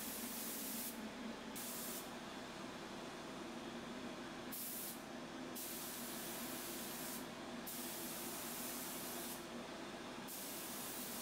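3M Performance gravity-feed spray gun spraying lacquer: a steady hiss of air and atomised finish that drops away five times as the trigger is let off between passes, with a steady low hum underneath.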